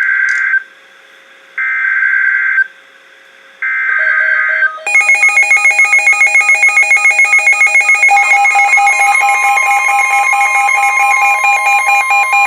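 Emergency Alert System SAME header: three buzzy digital data bursts about a second long, each a second apart, signalling the start of a new weather alert on NOAA Weather Radio. About five seconds in, a pulsing electronic alarm begins, and a few seconds later a steady warning tone joins it.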